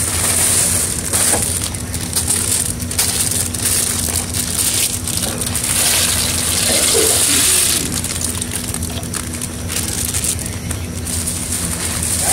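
Large pot of water at a rolling boil, a steady rushing hiss, with dry macaroni poured into it about six seconds in.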